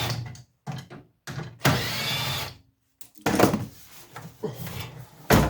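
Power drill-driver backing screws out of a microwave's sheet-metal casing, its motor whining in two short bursts, followed by rattling and clinks of loose metal and a thump near the end.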